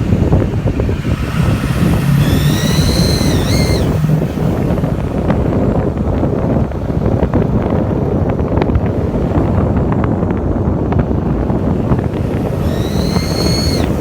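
Duramax diesel engine running with a steady rumble, while a high-pitched squeal comes in twice, once near the start and once near the end, each lasting about a second and a half and wavering in pitch. The owner cannot say what causes the squeal.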